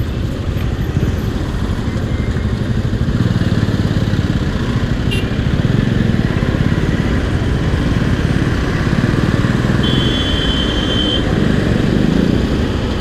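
Bajaj Pulsar NS single-cylinder motorcycle engine running steadily under way, heard from the rider's seat. A short, high two-note beep sounds for about a second roughly ten seconds in.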